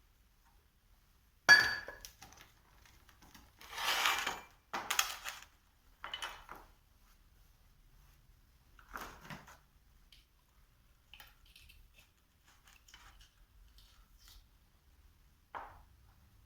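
Metal parts and tools handled on a work surface: a sharp metallic clink with a short ring about a second and a half in, then several scraping and rattling noises, and a light click near the end.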